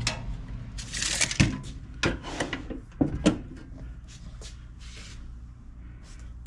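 A steel mini tool box being handled: a short scrape about a second in, then several sharp clicks and knocks of its metal drawers and lid.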